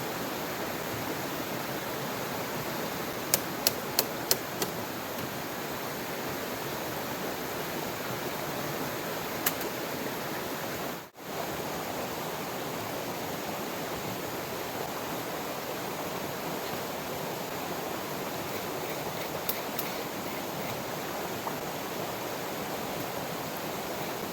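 Steady rushing-water noise of heavy rain and a flowing river. A quick run of about five sharp clicks comes about three seconds in, and the sound drops out for a moment near the middle.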